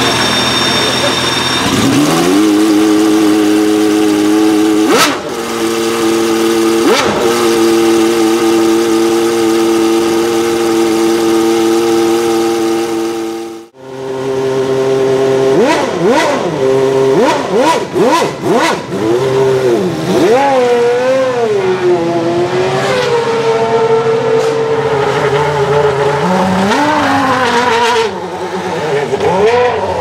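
Ferrari Formula One racing engines in the pit lane. One fires about two seconds in and settles to a steady, high idle; after a sudden break, a second engine, a Ferrari 412 T2's V12, is blipped repeatedly with its revs rising and falling sharply, then holds steady before another rise near the end.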